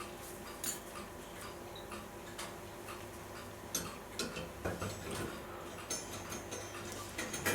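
Small metal clock parts clicking and tapping as the main time drive is fitted into the clock's time train: light, sharp clicks at uneven intervals over a faint steady hum.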